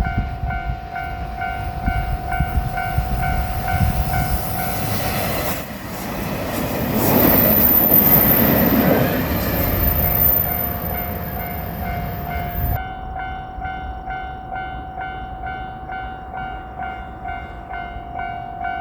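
A level-crossing warning bell rings in a steady repeating ding. For the first dozen seconds a diesel limited-express train, a JR Shikoku 2700 series railcar, passes with heavy rumble and then a loud rushing noise. After an abrupt change about 13 seconds in, only the crossing bell goes on.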